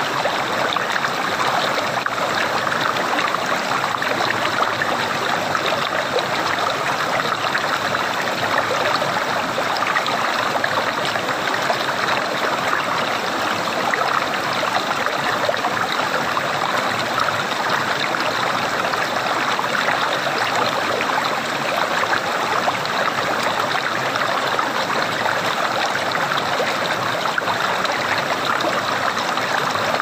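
Shallow rocky stream running over stones and around boulders: a steady rush and babble of flowing water.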